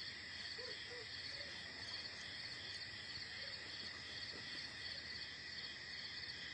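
Crickets chirping in a steady, rhythmic night chorus, faint and even.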